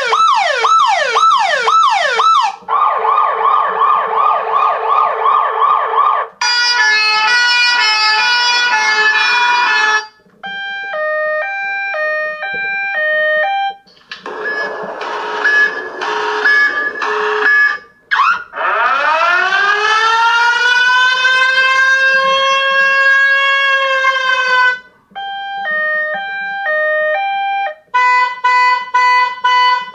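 Built-in emergency warning sounds of an 8849 Tank 2 rugged phone, played loud from its speaker one after another, each lasting a few seconds. First a fast wailing siren sweeping up and down, then a rapid warble and a quick run of chimes, then alternating two-tone beeps. Next a siren that winds up in pitch and holds, like an air-raid siren, then two-tone beeps again and rapid pulsed beeping near the end.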